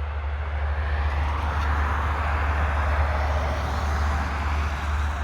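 Road traffic: a vehicle driving past on a busy road, its tyre and engine noise swelling to a peak in the middle and easing off, over a steady low hum.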